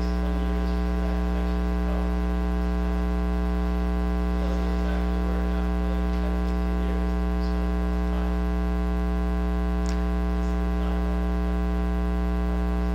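Steady electrical mains hum on the recording, loud and unchanging, with a faint distant voice under it: an audience member asking a question away from the microphone.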